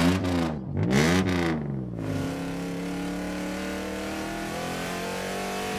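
Cartoon car engine sound effect: two quick revs that rise and fall in pitch, then a steady engine hum.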